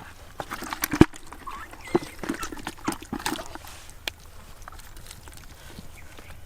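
Wet mud squelching and slapping as hands dig for fish, with a run of sharp knocks over the first few seconds, the loudest about a second in, then quieter.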